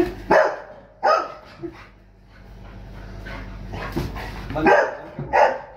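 Golden retriever barking in about four short, loud barks, two near the start and two near the end, at food held out of its reach.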